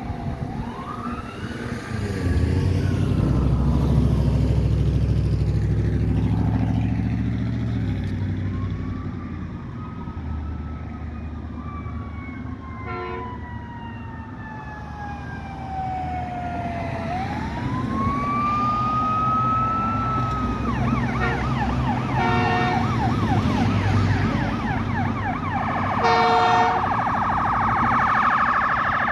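Fire truck and ambulance sirens wailing in slow rising and falling sweeps, switching to a fast yelp in the last third. Short horn blasts sound about halfway through and twice more near the end, over a deep diesel engine rumble in the first third.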